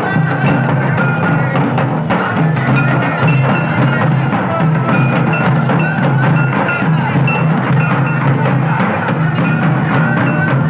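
Several stick-beaten barrel drums playing a fast, continuous dance rhythm, with short high notes sounding over the drumming.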